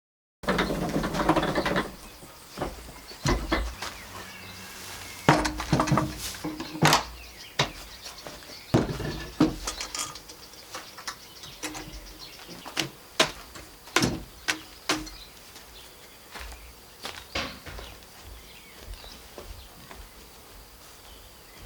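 Irregular sharp knocks and clatters, some ringing briefly, after a dense rustling burst at the start.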